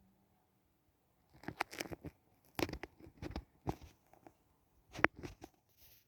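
Handling noise: light clicks, knocks and rustles in several clusters from about a second and a half in, with the sharpest knock about five seconds in.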